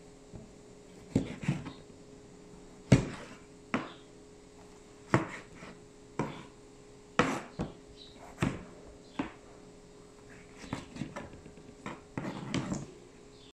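Kitchen knife slicing tomatoes on a cutting board: irregular sharp knocks of the blade striking the board, roughly one a second, the loudest about three seconds in.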